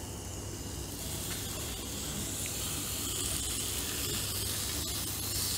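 Thin slices of raw pork and vegetables sizzling on a tabletop grill plate, a steady hiss that grows louder after about a second as more meat is laid on. A low steady hum runs underneath.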